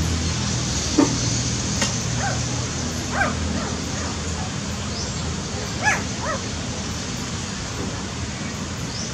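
Newborn puppies giving a handful of short, high squeaks and whimpers while they nurse, over a steady low hum.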